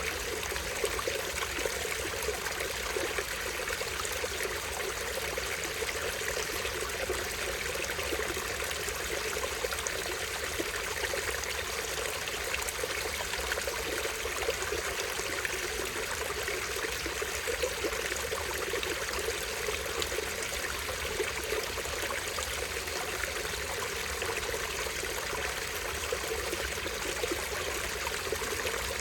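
Small stream flowing, a steady, unbroken trickling rush of water.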